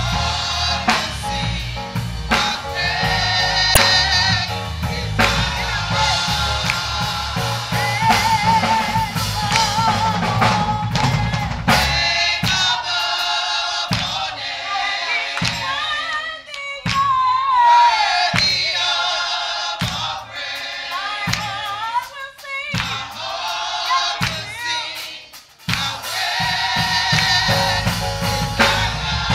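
Church choir singing gospel with a live band and drum kit. About twelve seconds in, the bass drops out, leaving the voices over sharp drum hits, and the full band comes back in near the end.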